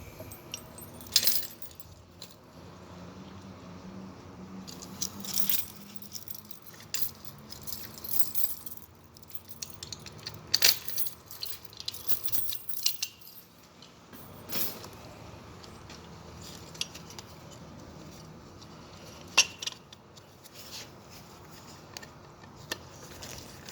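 A ring of metal keys jangling and clinking in scattered short bursts as it is handled, over a faint steady hum.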